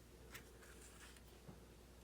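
Near silence: room tone, with two faint small clicks.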